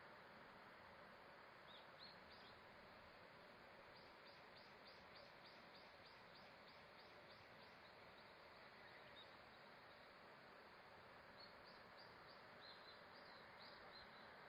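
Faint bird calls: runs of short, high chirps repeated about three times a second, one run in the first half and another near the end, over a steady faint hiss.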